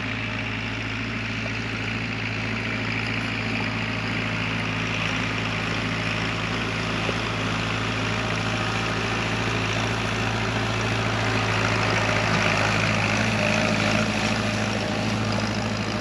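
Vehicle engine running steadily: a constant low hum over a haze of mechanical noise, growing a little louder about twelve seconds in.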